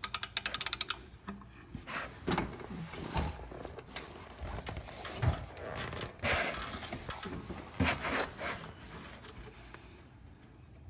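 A socket ratchet clicking rapidly for about a second as it works the oil pan drain bolt loose. Then scattered knocks, scrapes and rustles of tools being handled, fading near the end.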